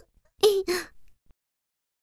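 A cartoon character's childlike voice making two short, pitched, wordless sounds in quick succession, about half a second in.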